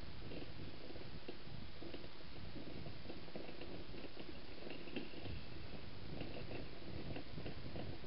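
Steady wind rumble on the microphone in an open field, with faint short high chirps scattered through the second half.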